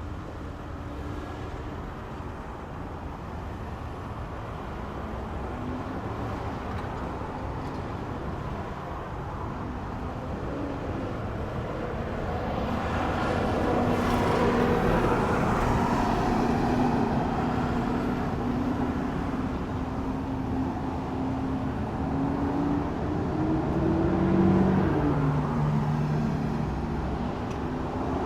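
Road traffic at an intersection: a continuous rumble of vehicle engines and tyres, with engine notes shifting in pitch as vehicles move off and pass. It swells louder about halfway through and again near the end.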